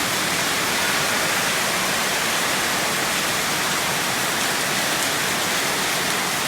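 Heavy rain falling, a steady, dense hiss that holds at an even loudness.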